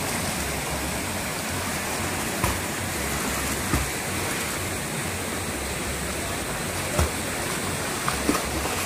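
Steady rush of a creek pouring into a rock plunge pool, with a few short sharp knocks or splashes standing out, the clearest about a second before the end... near the seven-second mark.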